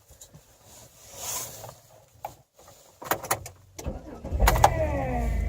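Car engine being started: a few clicks, then the engine starts about four seconds in and settles into a steady idle.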